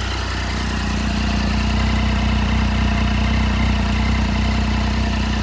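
Triumph Street Triple's three-cylinder engine idling steadily through an Akrapovic carbon slip-on silencer, the exhaust note holding at an even pitch with no revving.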